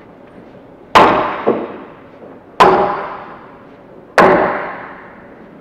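Axe chopping into the side of a log, notching it for hand hewing: three heavy strikes about a second and a half apart, each ringing on in the echo of a large room.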